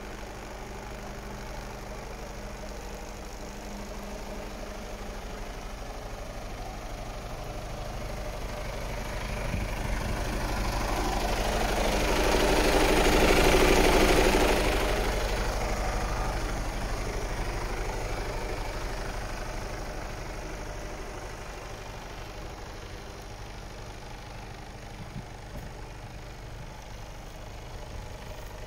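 Mercedes-Benz Actros 2545 tractor unit's six-cylinder diesel engine idling steadily. It swells louder and brighter for a few seconds around the middle, heard close up beside the chassis frame, then settles back to a steady idle.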